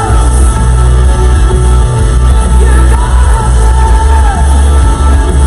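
Loud recorded concert music playing from a TV, with a heavy bass and a high melody line that slides in pitch, sung or bowed.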